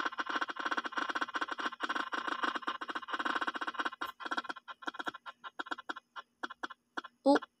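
Spin-the-wheel app's ticking sound from a phone speaker as the wheel spins: fast clicks that slow and spread out as the wheel winds down. A louder sound comes near the end, over a faint steady hum.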